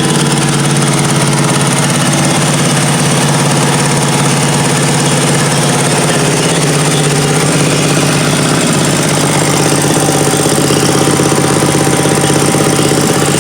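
Kawasaki FH430V 15 hp air-cooled V-twin lawnmower engine running steadily as a bare engine on a table, with no mower deck or blade attached.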